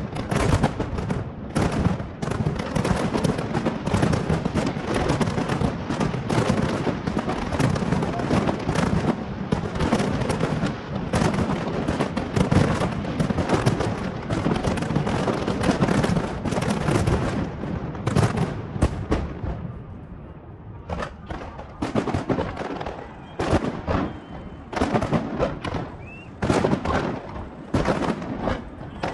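Fireworks display: a dense, nearly continuous barrage of bangs that thins out about two-thirds of the way through into separate bangs, with a brief lull.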